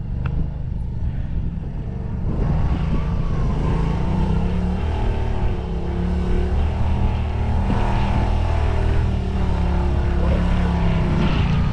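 Side-by-side UTV engine revving under load as it climbs a steep slickrock ledge. Its pitch rises and falls with the throttle, and it gets louder about two seconds in.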